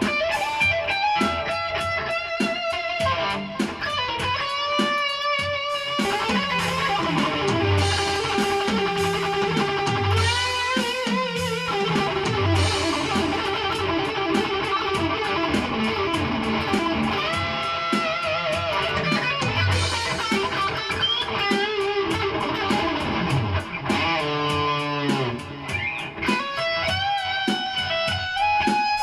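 Distorted electric guitar through a Boss Katana amp on its highest-gain 'brown' setting, playing a lead with held notes shaken by vibrato and repeated sliding runs down on the low strings.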